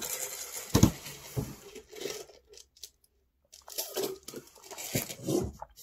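Crinkling and rustling of fast-food packaging with a few light knocks as the food containers on the table are handled, in two spells with a short pause between.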